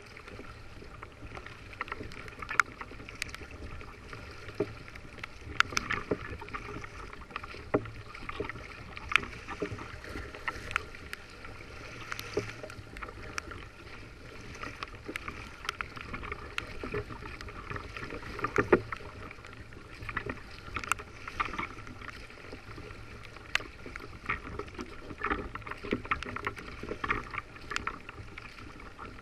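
Hobie Revolution 11 kayak under way in choppy sea: water slapping against the hull in frequent irregular sharp taps over a steady low rumble.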